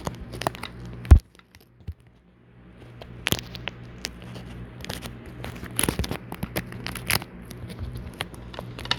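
Handling noise on a phone's microphone: irregular clicks, crackles and rustling over a faint hum, with one sharp loud knock about a second in, then a brief drop to near silence before the clicking resumes.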